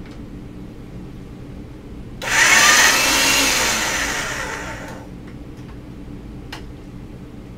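A motorized pasta machine running for about three seconds as the black polymer clay goes through its rollers on a thin setting: it starts abruptly, then fades as it winds down. A light click follows near the end.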